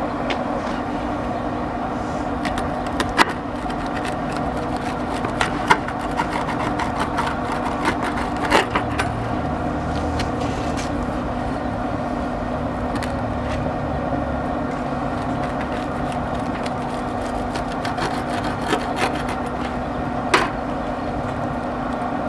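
A steady mechanical hum, with a few sharp clicks and light knocks now and then.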